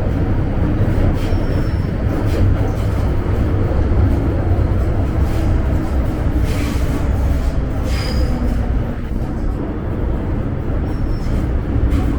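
MTR M-train electric multiple unit running at speed on the Island Line: a steady low rumble of wheels and running gear, with faint clicks over the track. Short high wheel squeals come about a second in, around the middle and near the end.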